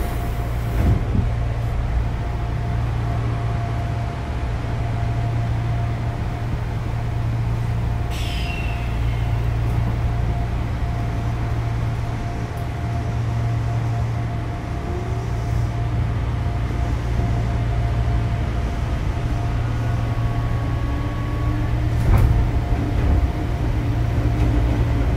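Odakyu 8000 series chopper-controlled electric train heard from inside the car: a steady low hum with a steady tone above it, a brief sharp sound about eight seconds in, and faint rising tones near the end as the train begins to move off.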